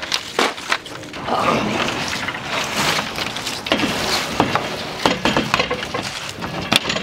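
Irregular knocks, clatter and rustling as a plastic folding table with metal legs is handled and propped against a metal fence.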